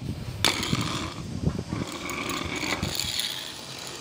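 Steel driveshaft with a universal joint being handled and flexed, its metal parts clicking and rattling, with a sharp click about half a second in.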